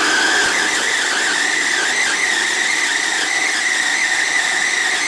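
Noisy food processor running at full speed, its blade chopping walnuts, sesame seeds, dates and raisins into a sticky paste: a loud, steady motor whine over a grinding hiss.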